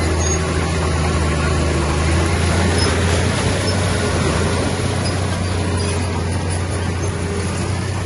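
Heavy earthmoving machine's diesel engine running steadily, a loud, even low hum.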